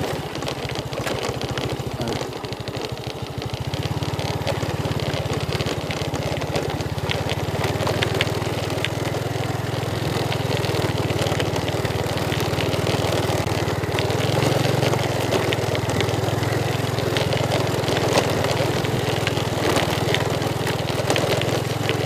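Small motorcycle engine running steadily at low speed on a rough dirt track, with the bike rattling and clicking over the ground.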